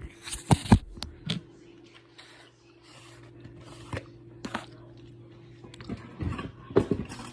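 Objects being handled on a kitchen counter: a scattering of short knocks and scrapes, busiest about half a second in and again near the end, over a faint steady hum.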